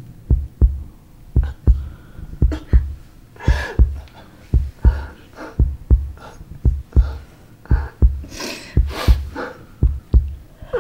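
A slow heartbeat, a pair of low lub-dub thumps about once a second, with a woman's breathing and sobs over it.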